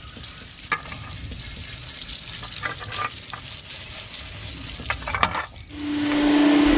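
Water from a garden hose hissing and splattering against a plastic refrigerator base grille and onto wet gravel, with a few light knocks as the grille is handled. Near the end it gives way to a louder shop vacuum running with a steady hum.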